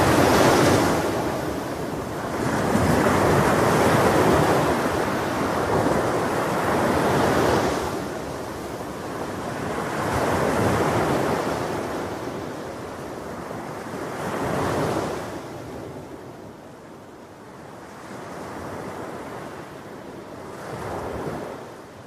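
Sea surf breaking and washing up a sandy beach, surging and fading every few seconds, fainter in the second half.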